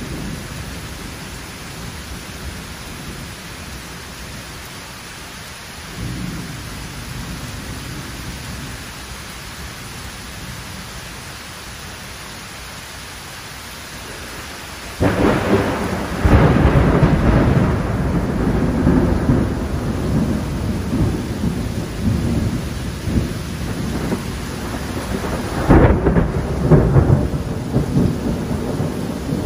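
Heavy rain falling steadily during a thunderstorm. Thunder rumbles low about six seconds in, then a loud, long roll of thunder starts suddenly about halfway through, with a sharp clap near the end.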